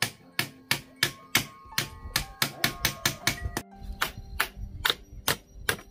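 Hammer driving nails: a steady run of sharp blows, about three to four a second.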